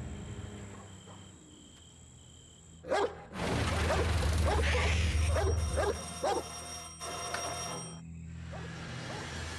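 Horror film trailer sound effects. A faint, broken high beep comes first, then a sudden hit about three seconds in. A loud passage of deep rumble follows, with shrill high ringing and a run of short rising sounds, and it cuts off about eight seconds in.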